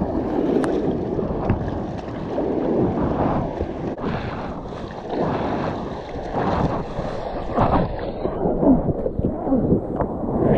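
Sea water sloshing and splashing right at the microphone as a surfer paddles a soft-top board into a wave in uneven surges, with breaking white water rushing around it near the end.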